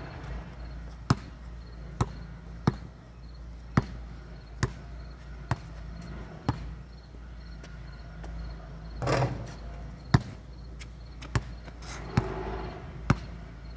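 Sharp knocks repeating irregularly, roughly once a second, over faint steady insect chirping, with a brief louder rush of noise about nine seconds in and again near twelve seconds.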